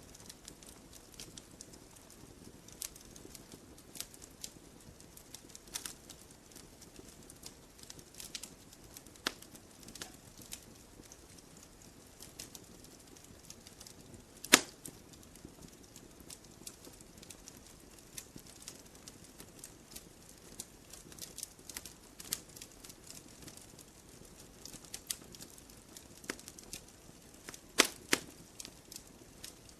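Campfire logs burning: scattered sharp crackles and pops over a soft hiss. One loud snap comes about halfway through, and a quick cluster of pops comes near the end.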